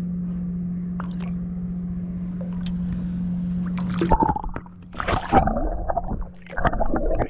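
Water sloshing and splashing right at the camera as a caught jewfish is put back over the side of the boat. It begins about four seconds in with a sudden splash, after a steady low hum that stops at that moment.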